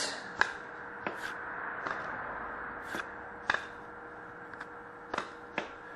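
Hockey trading cards handled by hand as they are flipped through one by one, giving a few sharp, irregularly spaced snaps and flicks of card stock.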